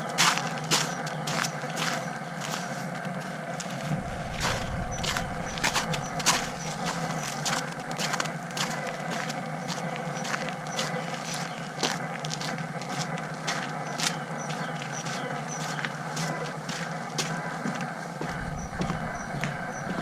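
Noise from the GoPro Hero 5's recording on a Feiyutech G5 gimbal: a steady whine with frequent irregular clicks, the sound problem this camera-and-gimbal setup has.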